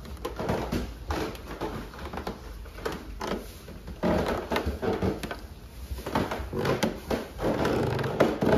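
Footsteps climbing a wooden staircase: slippered feet knocking on the wooden treads in an irregular run of short thuds.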